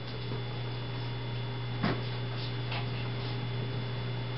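Steady low electrical-sounding hum with a few faint clicks; the clearest click comes about two seconds in.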